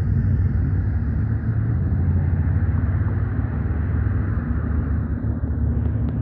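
Steady low outdoor rumble that fluctuates in loudness, with no distinct events.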